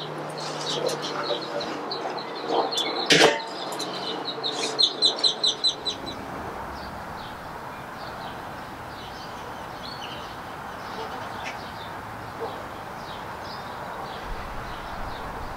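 Birds chirping and trilling outdoors, with a single sharp knock about three seconds in. After about six seconds the birds grow fainter over a steady hiss.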